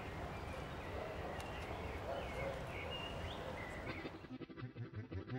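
Outdoor ambience: a steady background hiss with scattered short bird chirps. About four seconds in it cuts to music with a regular beat.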